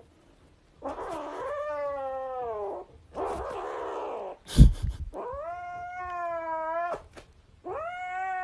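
A cat yowling in long, drawn-out wails, three in a row, with a breathy noise after the first. A sharp bump about halfway through is the loudest sound.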